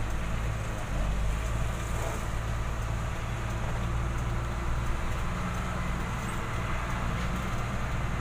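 Diesel engine of a Mitsubishi Fuso truck running steadily as the truck drives, heard from inside the cab.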